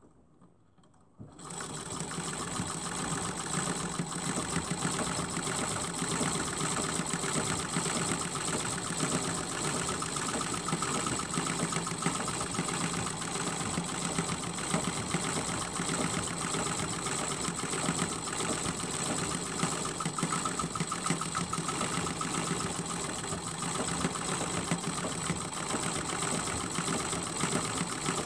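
Sewing machine starting about a second in and then running steadily at speed, stitching free-motion quilting through a layered quilt.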